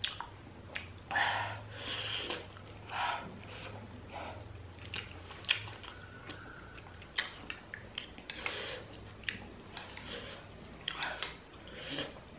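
A person eating hot jhol momo: repeated breathy puffs of blowing on the steaming soup, along with chewing and a few light clicks of a metal spoon in the bowl.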